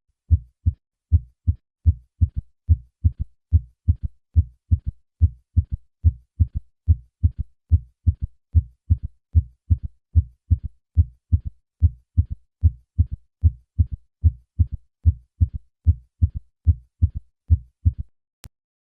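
Heart sounds heard through a stethoscope with a third heart sound: each beat's first and second sounds are followed by a soft, low early-diastolic thump, giving a steady three-beat gallop rhythm. These are short low thumps, about three to four a second, that stop shortly before the end.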